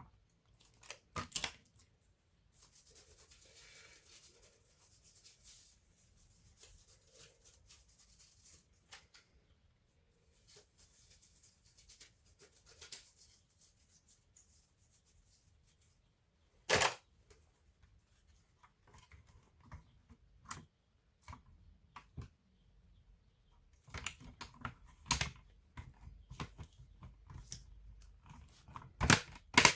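Laptop parts being handled during a teardown or repair: scattered sharp plastic clicks and knocks, with two longer stretches of scraping or rubbing in the first half.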